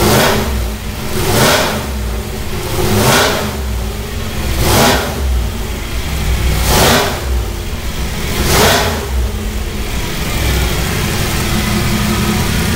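Newly installed carbureted V8 revved by hand at the carburetor throttle linkage: five quick blips, each dropping back to idle, then running steadily near the end.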